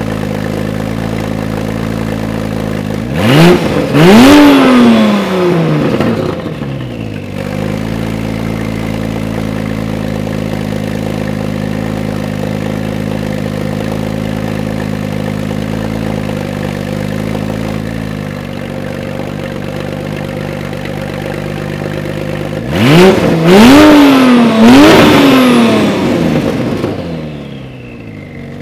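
Porsche 996 911 Turbo S twin-turbo flat-six idling through a Soul Performance near-straight-pipe exhaust. It is blipped in two bursts: a double rev a few seconds in and three quick revs near the end, each falling back to a steady idle.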